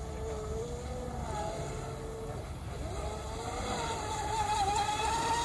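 Fast electric RC boat's motor whining as it runs on the water, its pitch climbing about three and a half seconds in as the boat speeds up, over a steady low rumble.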